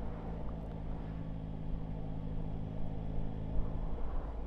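Yamaha Tracer 9 GT's three-cylinder engine running steadily at low road speed, with wind noise on the microphone.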